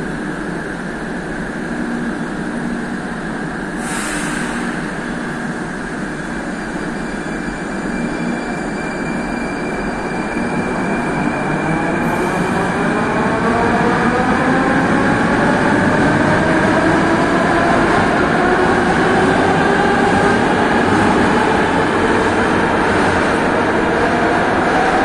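Moscow Metro train pulling out of the platform, its traction motors whining steadily up in pitch as it gathers speed from about ten seconds in, over a steady rumble. A brief hiss comes about four seconds in.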